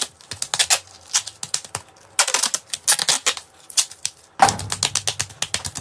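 Silver duct tape being pulled off the roll, a rapid crackling run of clicks repeated in about four pulls with short pauses between.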